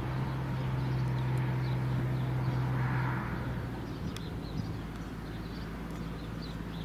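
A steady low engine hum that fades out about three seconds in, with small birds chirping.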